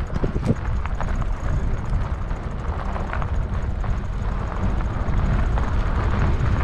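Electric bike riding on a rough dirt road: wind rumbling on the microphone, with tyre noise and irregular clicks and knocks from the bike rolling over stones.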